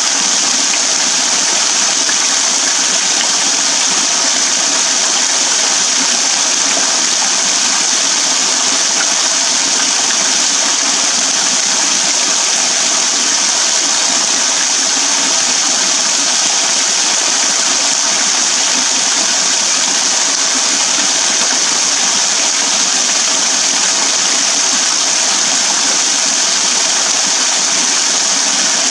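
Small waterfall pouring in thin streams off a rock overhang and splashing onto a shallow pool and wet ground below: a steady, even hiss of falling water.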